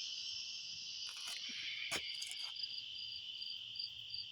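A dense chorus of night insects, a steady high-pitched drone. From about two seconds in, one insect chirps in a regular pulse about three times a second, and there are a few brief clicks near the start.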